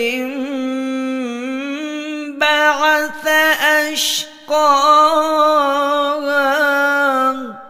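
A single reciter chanting the Quran in a melodic style, holding long drawn-out notes that waver and glide in pitch, with a brief pause about two and a half seconds in and a short hiss about four seconds in. The voice fades out with an echoing tail near the end.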